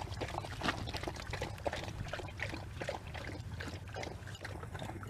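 A dog lapping up water, a quick irregular run of wet laps.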